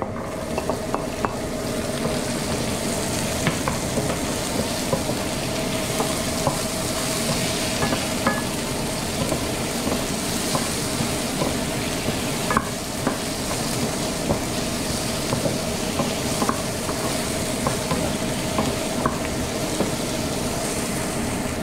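Broccoli and snow peas sizzling in hot oil in a frying pan, the sizzle starting as they go in, while a wooden spatula stirs them with occasional light taps and scrapes against the pan.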